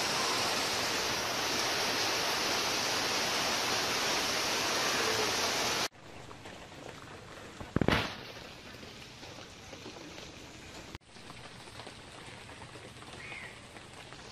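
Rain falling steadily: a loud, even hiss that cuts off abruptly about six seconds in, then softer rain pattering on a pond surface. One short loud noise comes about eight seconds in.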